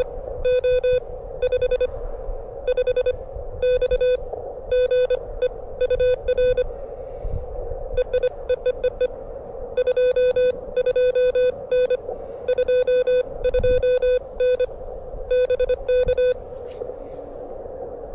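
Morse code (CW) at about 25 words per minute from an amateur radio transceiver: one mid-pitched tone keyed on and off in quick groups of dots and dashes. Under it runs a steady band of receiver noise at the same pitch.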